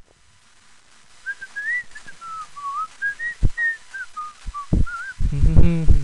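A person whistling a wandering tune in short phrases, with a few dull thumps; a voice comes in near the end.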